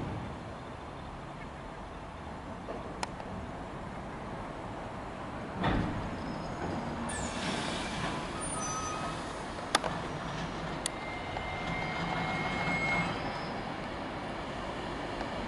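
Class 390 Pendolino electric train coming along the platform line: a steady low rumble of wheels and running gear that slowly grows louder. There is a thump about six seconds in, a few sharp clicks, and a faint high whine for a couple of seconds near the end.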